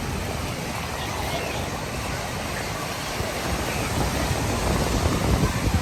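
Ocean surf and wind on the microphone: a steady rushing noise with a low rumble that grows louder over the last two seconds, with faint distant voices.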